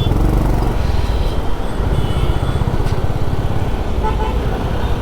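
Steady low rumble of a motorcycle ride in heavy traffic, engine and wind on the microphone. Short vehicle horn toots come about two seconds in and again near four seconds.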